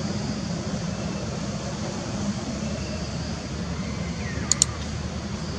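Steady low outdoor background rumble, with two sharp clicks close together about four and a half seconds in, the mouse-click sound effect of a subscribe-button animation.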